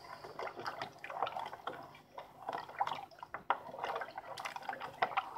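Wooden spoon stirring a thin, creamy liquid mixture in a metal pot: liquid sloshing and dripping, with irregular light knocks of the spoon against the pot.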